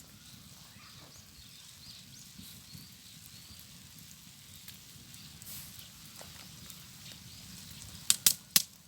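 Wood fire burning quietly under a stone grilling slab, with a faint outdoor hush and a few sharp crackling pops near the end.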